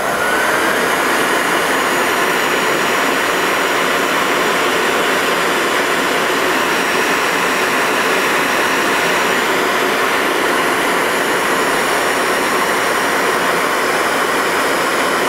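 Electric heat gun starting up with a short rising whine, then running steadily as its fan blows hot air over heat-shrink tubing on a soldered wire joint.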